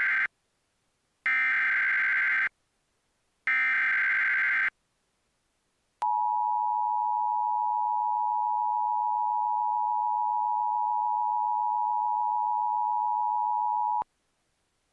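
Emergency Alert System SAME header: the end of one screechy digital data burst, then two more about a second apart. After a short pause comes the EAS two-tone attention signal, held steady for about eight seconds before it cuts off abruptly. This is the opening of an alert that announces a tornado warning.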